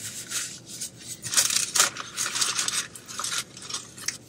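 Paper food wrapper crinkling and rustling as it is handled, in a run of quick scratchy strokes that grow louder about a second in.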